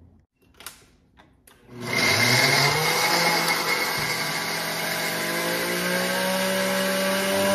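Small countertop blender grinding roasted peanuts into a fine powder. The motor spins up about two seconds in, then runs loud and steady, its pitch creeping slowly upward.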